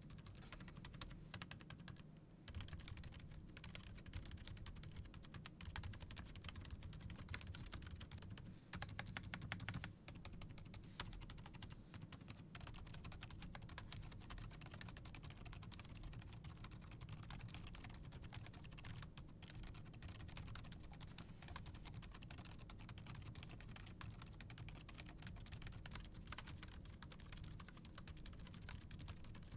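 Continuous quiet typing on a Redbean A1 mini 75% keyboard with a plastic case and ABS keycaps, fitted first with Outemu Peach silent linear switches and partway through with Outemu Lime silent non-click switches. The presses are hushed and soft, with fingers rubbing on the keycaps about as audible as the switches themselves.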